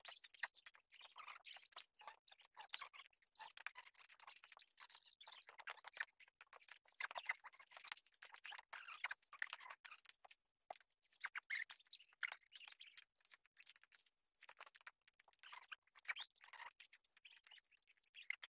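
Faint, irregular crackling and scraping of dry coconut husks and leaves as coconuts are picked up and moved.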